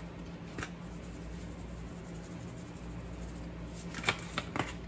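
Spice shakers being handled: a faint click early, then a few sharp clicks and taps close together near the end, over a steady low hum.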